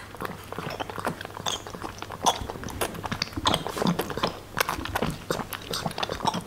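Lion cub suckling formula from a baby bottle: a run of quick, irregular sucking and mouth clicks.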